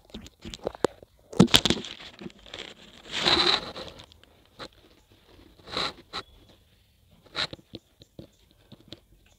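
Slime being pinched and stretched between fingers: sticky crackling and clicking, with a louder burst about a second and a half in, a longer one around three seconds in, and two more later.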